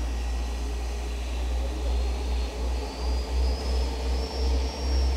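A steam-hauled special train running, a steady rumble with wind buffeting the microphone in uneven gusts. A faint high whine slowly rises in pitch through it.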